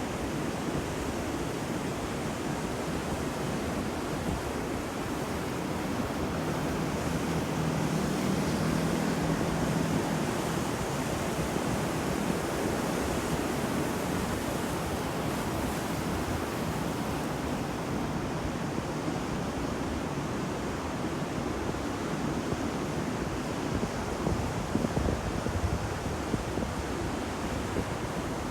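Ocean waves washing on a shore, a continuous surf hiss that swells a little partway through.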